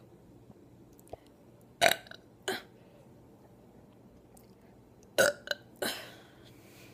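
A woman's short, deliberate burps: two about two seconds in, then three in quick succession a little after five seconds.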